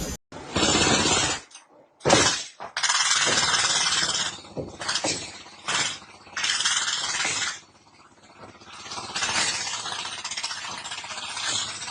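A series of noisy crashes and clattering, the loudest a sudden crash about two seconds in.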